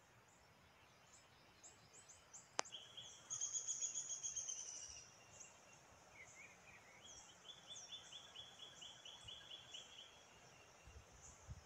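Birds calling: quickly repeated high chirps, loudest in a run about three to five seconds in and again in a second run a little later, with scattered short high notes throughout. A single sharp click sounds about two and a half seconds in.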